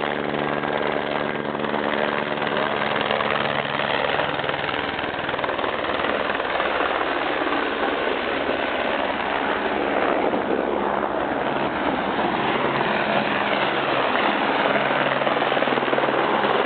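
Single-engine helicopter flying low and close, its rotor and turbine noise steady and getting gradually louder as it approaches.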